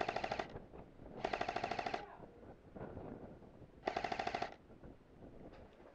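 Airsoft rifle firing three full-auto bursts: a short one at the start, a longer one about a second in, and another about four seconds in, each a fast even rattle of shots.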